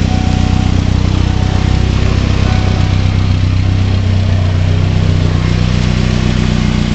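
Ford Mustang SVO's turbocharged 2.3-litre four-cylinder engine running steadily in gear, driving the transmission and rear wheels as they spin freely off the ground; engine speed shifts slightly around the middle.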